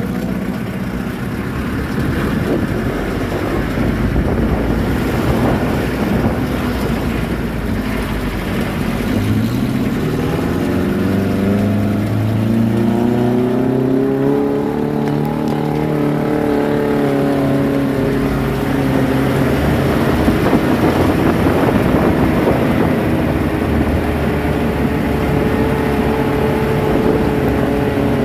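Jeep engine running while driving, over a steady rushing noise. About nine seconds in the engine note climbs as it revs up, then falls back a few seconds later and holds steady.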